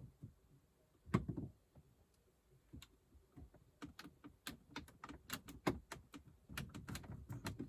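Trim tool prying at a plastic interior trim panel in a BMW F30: a knock about a second in, then a run of small plastic clicks and taps as the panel's clips work loose.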